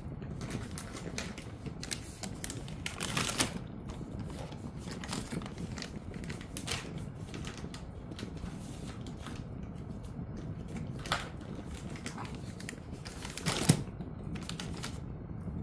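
Jindo-mix dog chewing a chicken stick treat: irregular crunching and clicking of teeth, with louder crunches about three seconds in and near the end.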